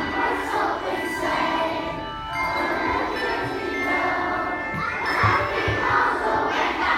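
Handbell choir playing a tune: many handbells ringing overlapping, sustained notes.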